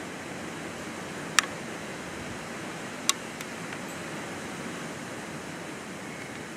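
Steady rushing background noise, with two sharp clicks about a second and a half in and again about three seconds in.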